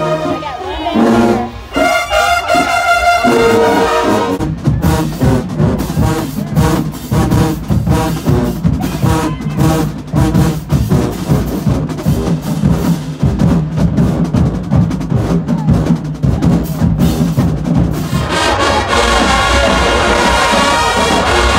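Marching band playing: brass holding long chords, then several seconds of drums beating a driving rhythm under the horns, and sustained brass chords again near the end.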